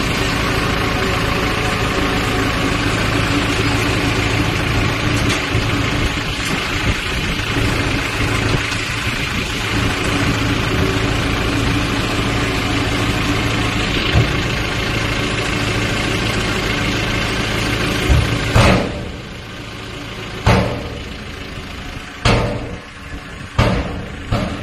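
Shacman H3000 dump truck's diesel engine running steadily while the tipper body is raised. After about 18 seconds the engine quietens and several loud metal clanks follow as the dump body comes down and its tailgate bangs shut.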